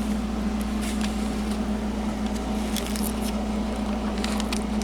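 A steady low hum with a few faint scattered clicks.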